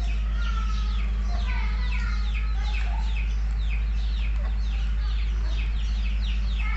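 Domestic chicks peeping without pause, a quick string of short high peeps that fall in pitch, over a steady low hum.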